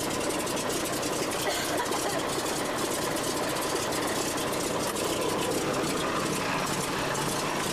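Open-cockpit biplane's piston engine running steadily with propeller noise, heard from inside the open cockpit as an even, rapid pulsing drone with a rushing hiss over it.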